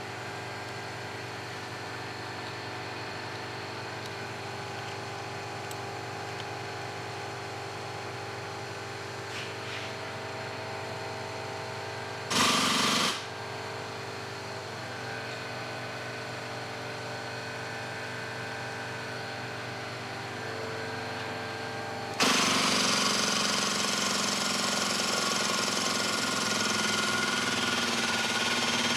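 Steady mechanical hum, broken about halfway by a brief loud burst of noise. About 22 seconds in, an air-driven hydraulic pump starts and runs steadily and much louder, building pressure to crimp a hydraulic hose fitting.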